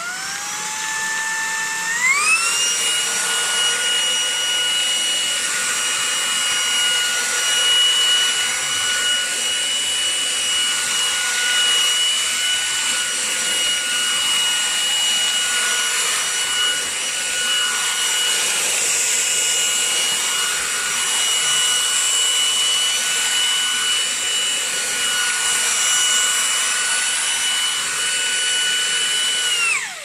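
Vax ONEPWR Blade 4 cordless stick vacuum motor running with a steady high whine. About two seconds in the pitch steps up as boost mode engages, and at the end it is switched off and the whine falls away. The floor head's brush roller is off while it sucks biscuit crumbs off carpet.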